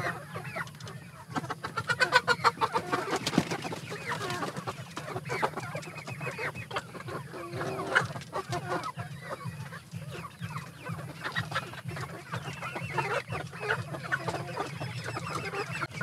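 A flock of roosting chickens clucking and making short complaining calls as they are disturbed and handled, with a burst of rustling and scuffling about two to four seconds in.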